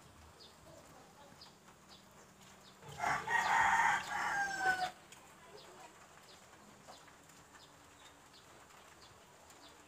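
A rooster crows once, about three seconds in, for about two seconds, its pitch falling at the end.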